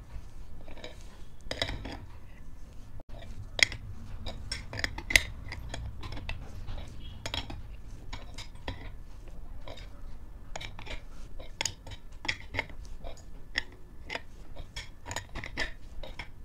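Adjustable wrench clicking and clinking against the nut of a bush puller as it is turned in short strokes, a steady run of irregular metallic clicks with two sharper clanks a few seconds in. The puller is drawing the worn inner bush out of a scooter's CVT variator.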